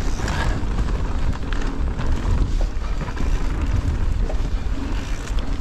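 Riding noise from an e-mountain bike descending a rocky trail: wind buffeting the camera microphone, with scattered clicks and rattles from the bike and the trail.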